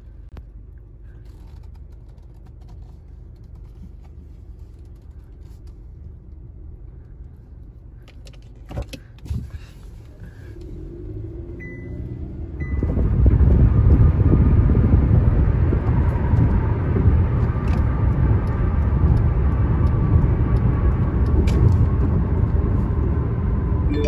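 Car heard from inside the cabin. For the first half the engine hums quietly, with a couple of clicks and two short beeps. About halfway through, the engine and tyre noise rise sharply into a steady low rumble as the car drives off.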